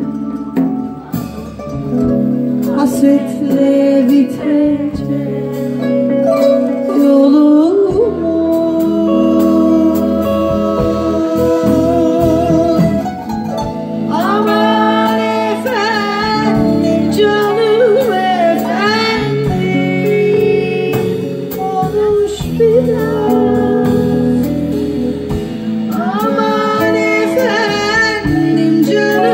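Live band playing a Turkish song, with electric guitar and drums under it. A woman's voice comes in with the melody about halfway through and sings again near the end.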